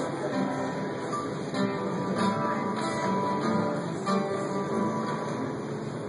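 Live folk-rock band music with a strummed acoustic guitar, recorded on a phone from the audience.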